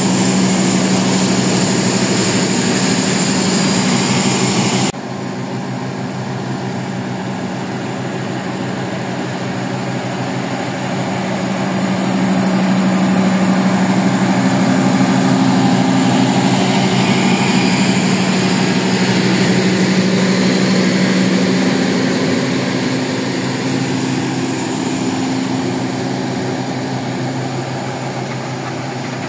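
Diesel generator set of a stainless-steel train power car running with a steady hum as the passenger train set rolls slowly past. The sound drops abruptly about five seconds in, swells again in the middle and eases off near the end.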